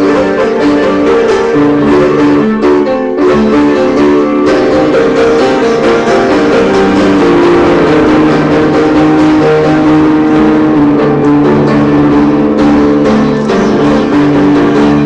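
Upright piano played continuously, with changing chords and a melody, loud.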